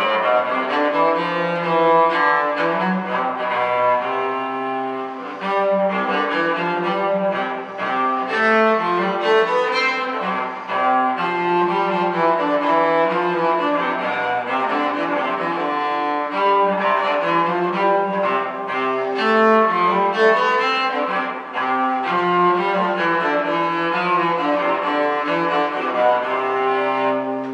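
Solo cello bowed by a beginner, playing a minuet as a steady string of notes.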